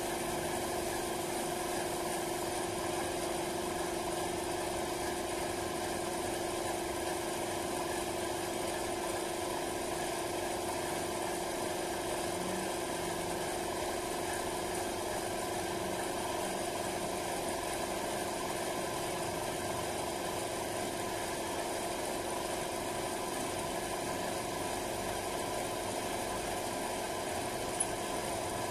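Air compressor running, a steady unbroken hum with a light hiss, supplying a paint spray gun through an air hose. One small click near the end.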